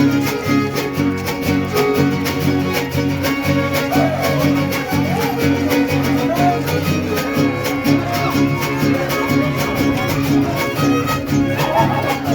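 Live string trio music: a violin plays the melody over steadily strummed guitars.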